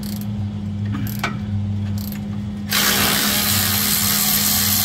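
Cordless electric ratchet backing out the M6 transmission oil pan bolts: a few light clicks as it is fitted to a bolt, then the tool runs continuously from a little past halfway. A steady low hum lies underneath.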